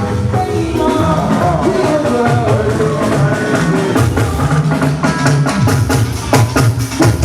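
Music with singing and drums. From about four seconds in, sharp, quick drum strikes come through more strongly under the voices.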